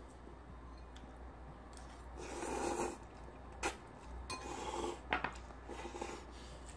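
A person slurping ramen noodles from a bowl: one long slurp about two seconds in and a shorter one around the middle, with a few sharp clicks in between.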